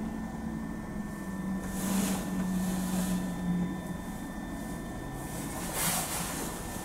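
Bakerloo line tube train heard from inside: a steady mechanical hum with faint high whines, a low hum that swells and then stops about three and a half seconds in, and two short hisses, about two and six seconds in.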